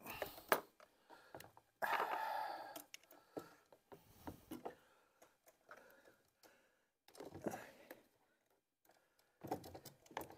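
Handling noise as a small battery and its leads are turned and pushed into a plastic battery compartment: scattered clicks and knocks of plastic, with a longer rubbing sound about two seconds in.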